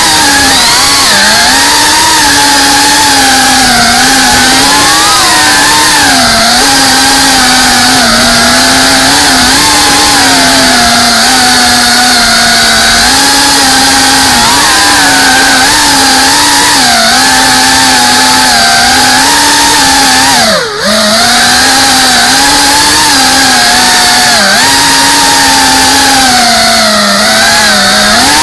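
FPV racing quadcopter's brushless motors and propellers whining loudly, heard from the drone's own camera, the pitch rising and falling constantly with the throttle. About twenty seconds in the throttle is chopped for a moment: the pitch and level dip sharply, then recover.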